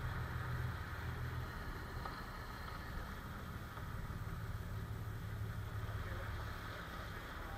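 Sportfishing boat's engine running steadily under way, a low drone with the wash of the wake and wind.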